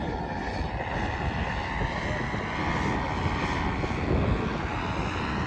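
Paramotor engine and propeller running steadily, with strong wind buffeting the microphone.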